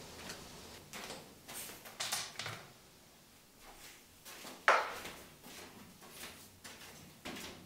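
A plastic food tub with a carry handle being picked up and handled, with footsteps, in a small tiled storeroom: a series of light clicks and knocks, the loudest a single sharp knock about halfway through.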